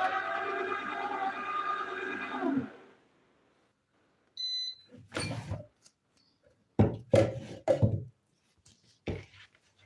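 Vertical slow juicer's motor running with a wavering whine, winding down and stopping about three seconds in. A short high beep follows about a second later, then a run of plastic knocks and clunks as the juicer and its juice cups are handled, loudest just before eight seconds.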